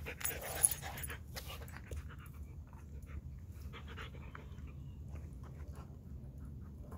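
Alaskan husky panting and mouthing a ball, with many small wet clicks from its mouth and a sharp knock under a second in.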